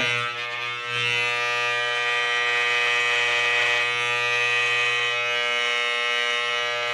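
Corded electric hair clippers buzzing steadily as they cut hair close to the scalp.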